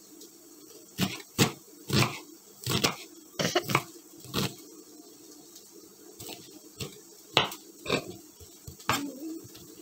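Kitchen knife chopping onion on a wooden chopping board: sharp knocks of the blade on the board at an uneven pace, some in quick pairs, with short pauses between.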